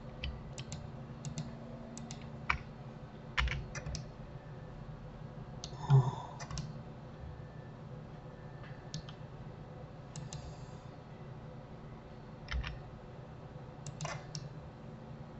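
Computer keyboard keys and mouse buttons clicking sparsely and irregularly, a dozen or so single clicks with a slightly louder one about six seconds in, over a low steady hum.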